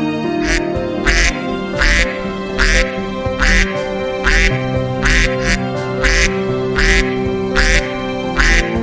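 Duck quacking, about a dozen short calls at an even pace, over steady background music.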